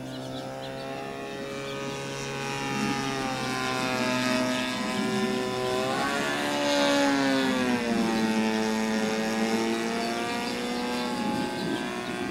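Model airplane's DLE20 single-cylinder two-stroke gasoline engine and propeller in flight. The engine note climbs, swings sharply about six to seven seconds in, where it is loudest, then falls in pitch and fades.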